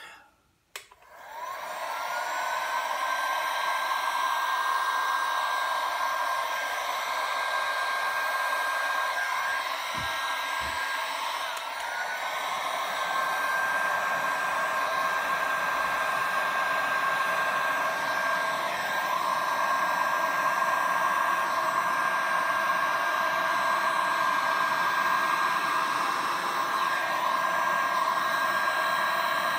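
Electric heat gun switched on about a second in and blowing steadily. Its motor whine rises to a held pitch as it spins up, then dips briefly and climbs back near the middle.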